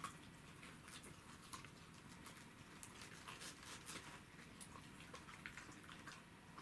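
Faint, scattered crunching clicks of Pembroke Welsh corgis chewing raw cabbage leaves.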